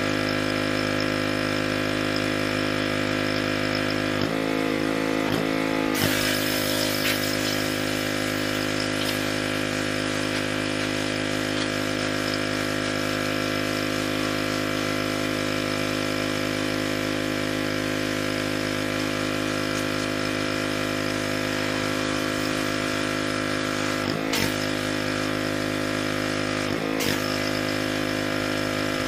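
Pressure washer running steadily, its motor and pump humming under the hiss of the water spray. The pitch wavers briefly about four to six seconds in, and twice more near the end.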